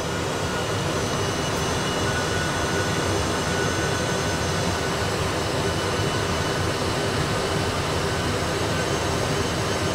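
Steady cockpit noise of an Airbus A320 full flight simulator on final approach, made up of the simulated airflow and engine sound with the landing gear and flaps extended.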